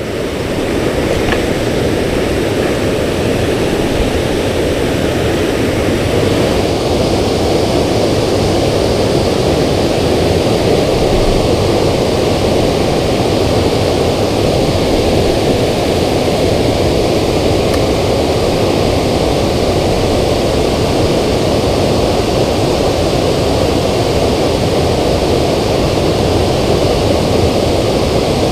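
Steady rushing of water pouring over a low dam spillway, an even, constant noise that grows brighter and slightly louder about six seconds in.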